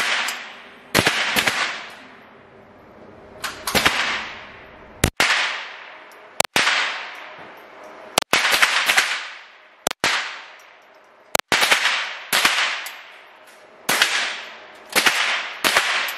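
Rifle shots fired one at a time, about fifteen at an irregular pace, some in quick pairs. Each shot is sharp and echoes away for most of a second off the walls of an indoor range.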